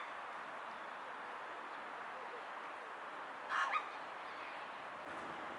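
A rook giving one short, hiccuping call in two quick parts about three and a half seconds in, over a steady background hiss.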